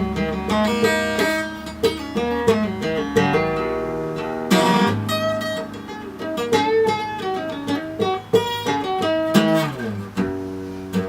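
Music: acoustic guitar playing, plucked and strummed chords.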